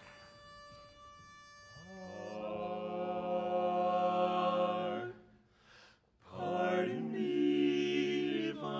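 A pitch pipe sounds one steady note, then a male barbershop quartet sings unaccompanied in close four-part harmony: a long held chord, a short break, and the next phrase.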